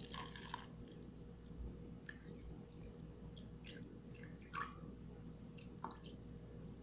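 Excess water poured in a thin stream off a tub of oobleck into a plastic container, heard as faint, irregular small clicks and trickling splashes.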